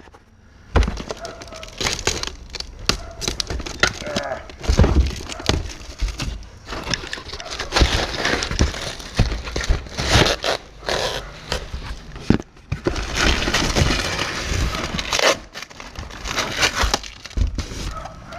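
Packaging being torn open and handled as new motorcycle exhaust tips are unpacked: rustling and crinkling wrap with many scattered cracks, knocks and scrapes.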